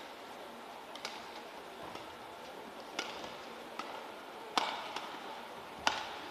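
Badminton racket strokes hitting a shuttlecock during a rally: four sharp hits, at about one, three, four and a half and six seconds, the last two loudest, over faint hall noise.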